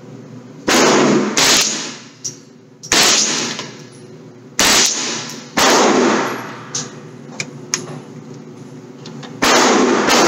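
Gunshots: about six loud single shots at uneven intervals, each with a long fading echo, and a few fainter cracks in between.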